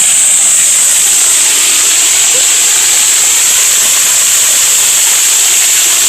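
Waterfall pouring down right over the microphone: a loud, steady rush of falling water from underneath the fall.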